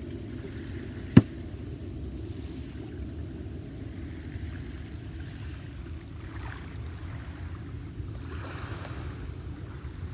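Steady low wash of wind and waves, with a single sharp click about a second in.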